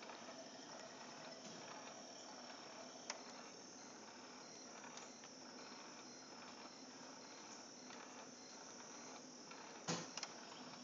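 Fisher-Price baby swing running: a faint, steady high whine and hiss from its motor and turning bird mobile, with a soft click about three seconds in and a couple of short knocks near the end.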